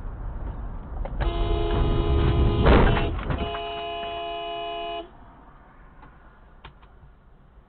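Car horn sounding in two long blasts, the first starting about a second in and the second ending about five seconds in, with a short loud burst of noise cutting across it near the break. Low road noise before and after.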